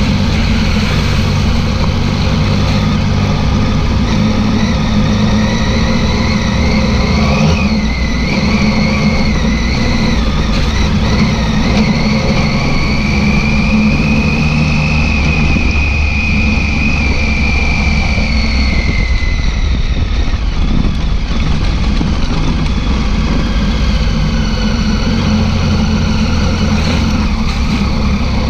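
Triumph Tiger 800 XCX's three-cylinder engine running under way on a dirt trail, its note rising and falling as the throttle opens and closes.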